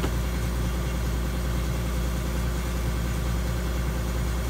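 Link-Belt 3400 excavator's diesel engine idling steadily.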